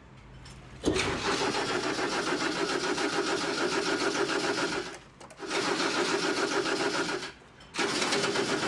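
Car starter motor cranking the engine three times, about four seconds, then two seconds, then one more try, each stopping abruptly. The engine does not catch: a car that will not start.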